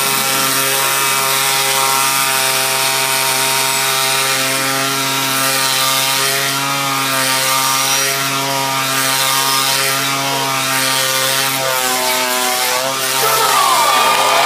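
Two-stroke chainsaw engine running steadily at one pitch. Near the end the pitch wavers and the engine revs up and gets louder.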